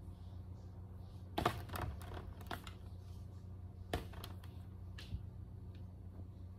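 Hands handling a Fluffie Stuffiez plush and pulling at its fluff: a quick run of small clicks and crackles about a second and a half in, and another short burst near four seconds, over a steady low hum.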